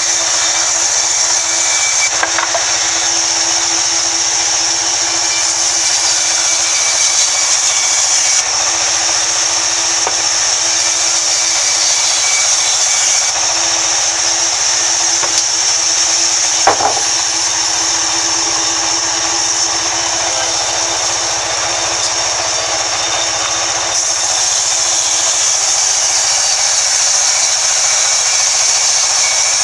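Sawmill band saw running and cutting lengthwise through a log: a steady, loud sawing noise with a strong high hiss. A single sharp knock sounds a little past halfway.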